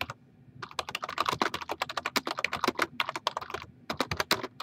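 Fast typing on a computer keyboard, a quick run of keystrokes that starts about half a second in and pauses briefly near the end.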